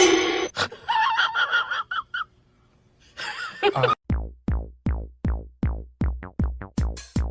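A sudden loud burst, then a wavering high voice-like sound for about a second and a half and a short pause. From about four seconds in, background music with a steady thumping beat, a little over two beats a second.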